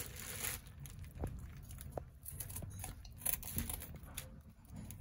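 A whole angelfish being scaled: irregular scraping and crackling as the scales are scraped off its skin, with the plastic bag under the fish crinkling.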